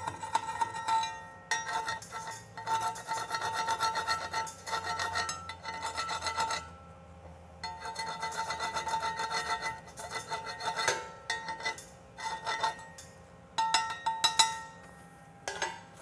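Stick-welding arc crackling and hissing as a 7018 electrode lays the cap pass on a vertical groove weld. The arc stops for about a second near the middle and breaks off briefly a few times near the end.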